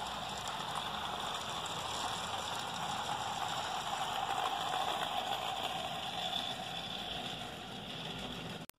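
HO-scale model freight train rolling past, its wheels running on the rails as a steady noise. The noise grows to its loudest about halfway through and fades as the last wagons go by, then cuts off suddenly near the end.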